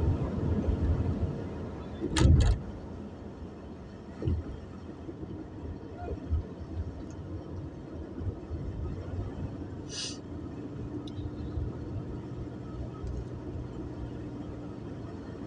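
Steady engine and road rumble inside a moving car's cabin, with a faint steady hum in the second half. A loud short thump about two seconds in, a smaller one a couple of seconds later, and a brief click near the end.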